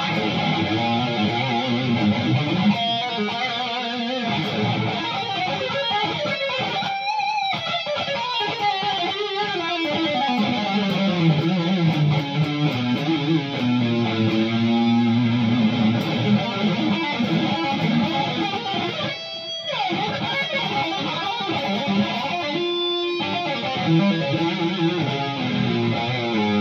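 ESP LTD F Black Metal electric guitar, tuned to B flat, played as a high-gain distorted lead through a Line 6 Helix LT, with sustained notes and pitch bends and slides.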